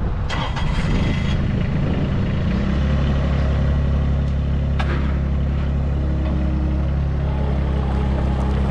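Small three-cylinder Kubota diesel of a Bobcat S70 skid steer running, settling to a steady speed about two and a half seconds in. A brief rattle in the first second and a single click near the middle.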